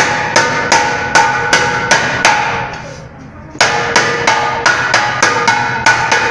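Mallet strikes on a bulged aluminium pressure cooker, about two and a half blows a second, each leaving a ringing metallic note. The blows pause for about a second midway, then resume. The swollen pot is being beaten back down into shape.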